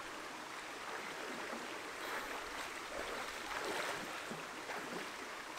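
A swimmer's strokes splashing through a cold plunge pool, over a steady rush of running water; the splashing grows busier about two seconds in.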